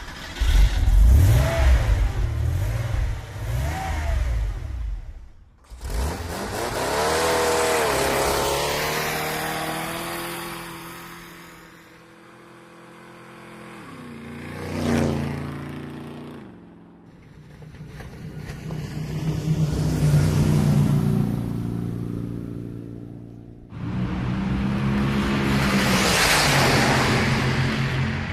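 Motor vehicle engines passing by in a series of separate passes, each swelling up and fading away, one with a quick peak and falling pitch about halfway through. Heavy low rumbling in the first five seconds.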